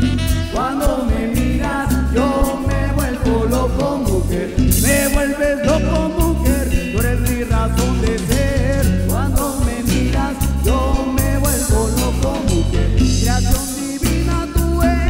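Latin dance-band music: an instrumental passage, a melody line over a steady bass-and-drum beat.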